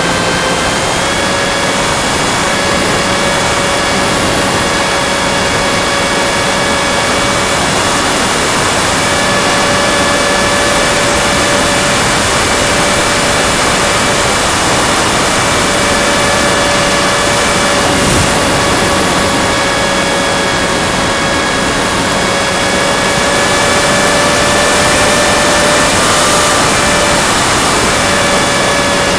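Go Discover FPV model plane's electric motor and propeller, heard from the onboard camera, running at a steady cruise throttle. It makes a steady whine with overtones over a constant hiss of air rushing past the airframe. The pitch steps up slightly about a second in and wavers a little.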